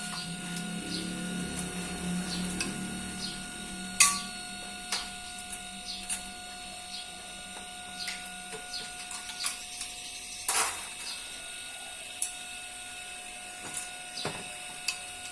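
Hand tools at work: scattered sharp clicks and knocks, the loudest about 4 and 10 seconds in, over a steady hum.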